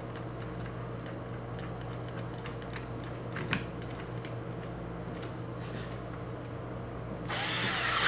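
Faint clicks and small knocks of a small metal fan shaft and rotor being handled. Near the end comes a burst of noise about a second long from an orange cordless drill as the shaft is clamped in its chuck.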